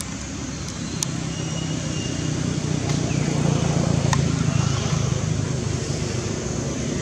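A motor vehicle's engine running, a steady low hum that swells to its loudest about halfway through and then eases off, with two brief sharp clicks.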